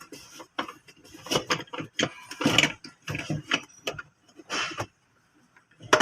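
Irregular clicks and knocks of metal being handled as the loosened fuel pump locking ring and cover are worked off the tank.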